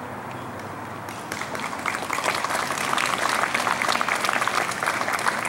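A crowd applauding: dense clapping that starts about a second in and keeps up steadily.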